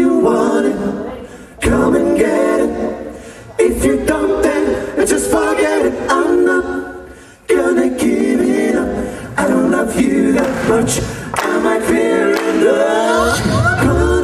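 Male a cappella group singing live: a lead voice over close-harmony backing, in phrases that each start sharply, with a rising vocal slide and a deep bass part coming in near the end.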